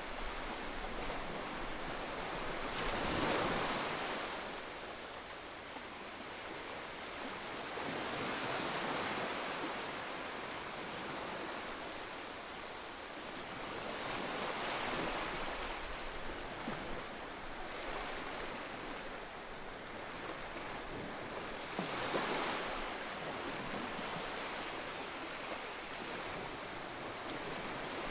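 Ocean waves breaking and washing on a shore, a steady rush of surf that swells and eases every five to seven seconds.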